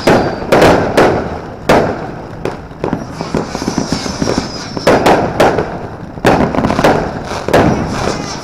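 Fireworks going off: a rapid, irregular series of sharp bangs, one to two a second, with crackling between them and a faint high whistle falling in pitch now and then.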